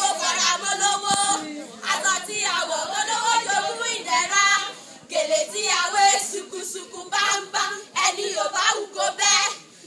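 A group of voices singing together without instruments, with hand clapping.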